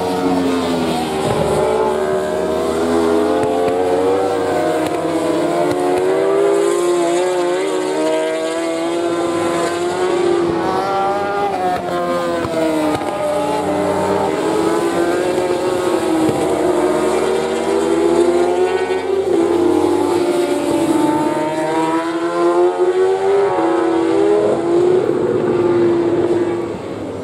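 Several JSB1000 superbikes' inline-four engines running hard around the circuit, their pitch repeatedly rising and falling as the bikes accelerate and change gear. The sound never stops, with several bikes overlapping.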